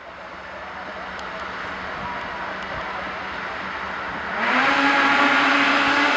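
A field of two-stroke snocross racing snowmobiles running at the start line. About four seconds in, their engines rev up together, louder and rising in pitch, then hold at a high steady pitch as the start approaches.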